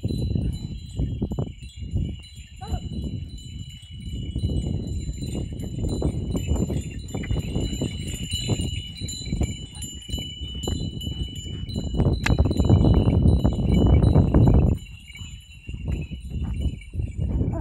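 Small bells on a pair of working bullocks jingling steadily as the animals walk pulling a seed drill. Under them runs a heavy low rumbling noise, loudest from about twelve seconds in, that cuts off suddenly near fifteen seconds.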